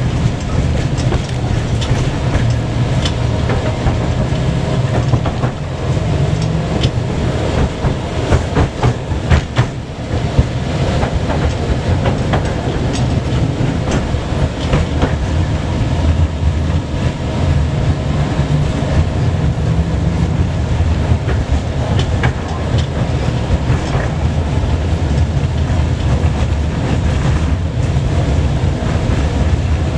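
Tram running along its track, heard from inside the car: a steady low rumble with frequent clicks and knocks of the wheels over rail joints, thickest around eight to ten seconds in.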